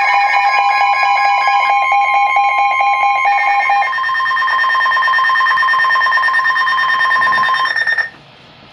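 NOAA Weather Radio alert: a steady electronic tone near 1 kHz with pulsing alarm beeps layered over it, cutting off abruptly about eight seconds in and leaving low hiss. The alarm signals the start of a severe thunderstorm warning broadcast.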